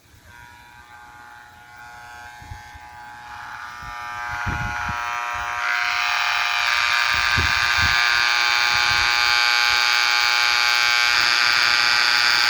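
An electric buzz made of several steady pitches, starting faint and swelling to loud over the first six seconds, then holding steady: the windings of a small motor being overloaded with high current to burn them out. A few dull thumps sound under it.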